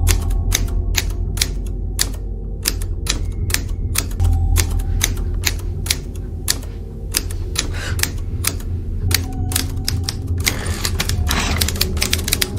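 Typewriter keys striking at an uneven pace, a few clacks a second, over a low steady drone.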